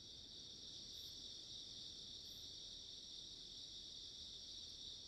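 Faint, steady chorus of insects, crickets, making a continuous high, even shrill, with a soft low background rumble beneath.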